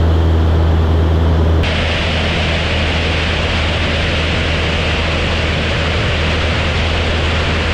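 Light aerobatic aircraft's engine and propeller droning steadily, heard from inside the cockpit. It cuts suddenly about a second and a half in to a steady rush of wind over a camera mounted on the wing, with the engine fainter beneath.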